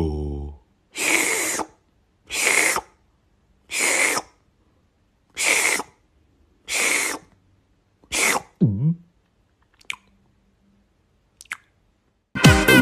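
A series of six short breathy gulping sounds, about one every second and a half, most likely an added sound effect for a goldfish sucking up food pellets. Near the end comes a short falling tone and two faint clicks.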